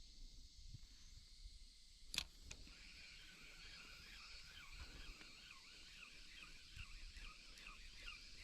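A single sharp click about two seconds in, then faint quick chirping calls that repeat several times a second.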